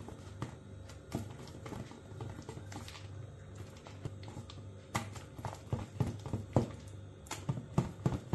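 Thick ground moong and urad dal batter being beaten by hand in a stainless steel bowl: irregular wet slaps of the hand through the batter, coming thicker and louder about halfway through.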